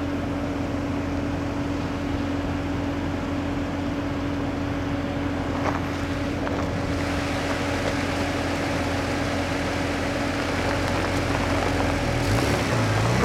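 A vehicle running with a steady, even drone and a constant humming tone underneath.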